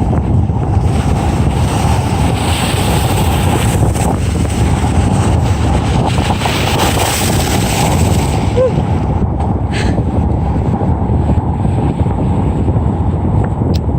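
Heavy wind buffeting the microphone over rough water, with a louder rush of splashing waves around the kayak through the first half.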